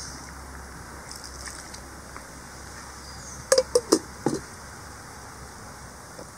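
Steel kitchen utensils clinking: four quick metallic knocks a little past halfway, over a faint steady low hum.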